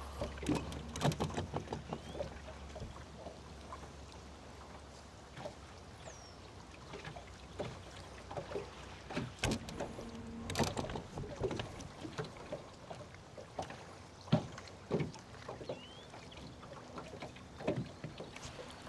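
Small boat on the water: scattered knocks, taps and small splashes, such as water slapping against the hull and gear moving aboard, with a low steady hum at the start.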